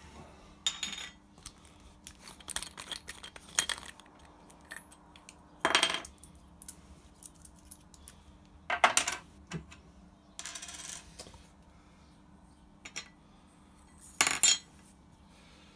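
Small metallic clinks and taps with several short rattling pours: the powder and bullet of a pulled .308 cartridge being tipped out of a bullet puller onto a reloading scale.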